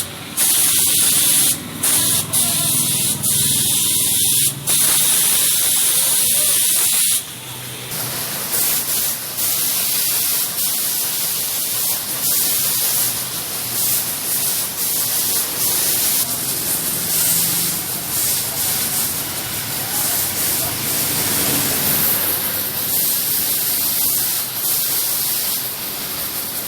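High-pressure washer jet spraying water, a loud steady hiss that breaks off briefly several times in the first few seconds, then runs on without a break at a slightly lower level.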